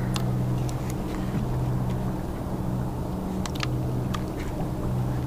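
Boat engine idling, a steady low hum, with a few light clicks and taps over it.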